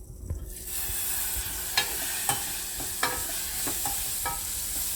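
Onions frying in oil in a pot on the stove, sizzling steadily from about half a second in, with a spoon stirring them and clicking against the pot a few times. The onions are frying soft in the oil.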